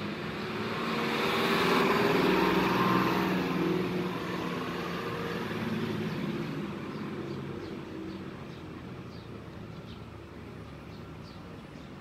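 A motor vehicle passing: engine and road noise swell to a peak about two seconds in, then slowly fade away.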